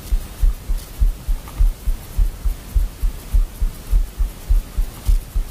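Steady rhythmic low thumping, about three beats a second, unchanging throughout.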